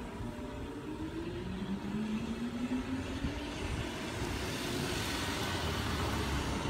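A car drives past close by, its engine and tyre noise building over the last two seconds. Earlier, a rising whine comes from a vehicle speeding up.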